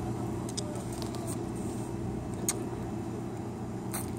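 Steady low machine hum of room ambience, with a few light clicks and taps.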